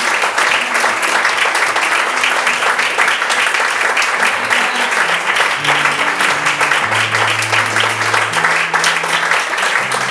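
Audience applauding steadily, the close clapping of a small crowd. From about halfway through, a few sustained low acoustic guitar notes ring out under the clapping, stepping downward.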